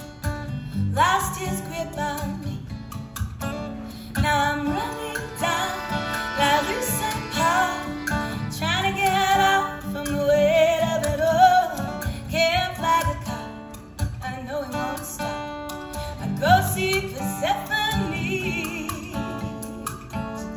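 Live acoustic band music: a steadily strummed acoustic guitar under a gliding melody line and women's voices singing without clear words.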